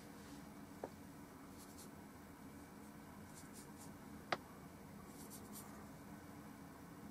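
Faint scratchy strokes of a paintbrush working oil paint, in a few short runs, with a small click about a second in and a sharper one a little past four seconds, over a low steady hum.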